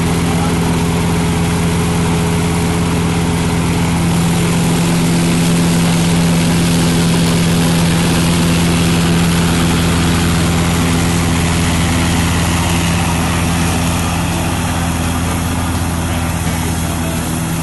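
Riding lawn mower engine running steadily just after being started with the key, in neutral with the blade disengaged.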